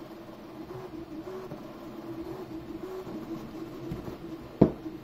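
Cross-gantry 3D printer's stepper motors running as the print head moves: a steady whine that steps up and down in pitch with each move. A single sharp knock comes near the end.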